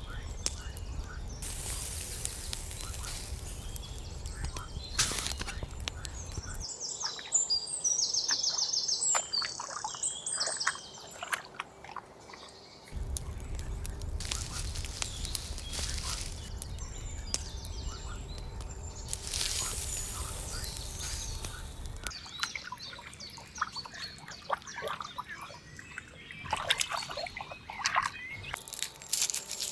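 Outdoor ambience with birds chirping, a low rumble in some stretches and scattered clicks and knocks.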